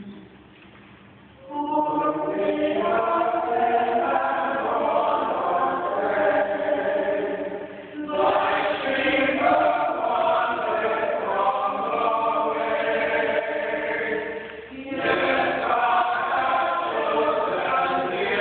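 Small church choir singing a hymn in long phrases, starting about a second and a half in, with short breaths between lines about eight and fifteen seconds in.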